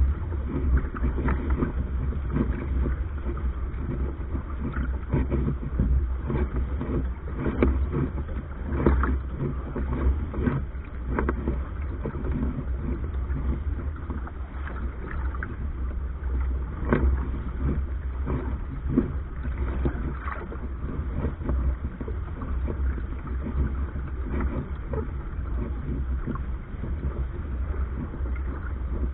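Water rushing and splashing along the hull of a Soling keelboat under sail, with many short irregular slaps. Under it runs a steady low rumble of wind on the microphone.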